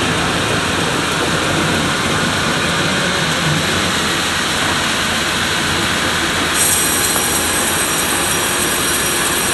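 Band sawmill running with a loud, steady mechanical noise. About two-thirds of the way through, a higher hiss with a thin steady whine joins in.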